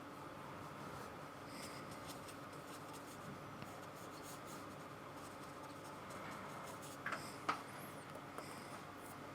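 Faint, scratchy strokes of a paintbrush laying acrylic paint onto the painting, with a couple of light taps near the end.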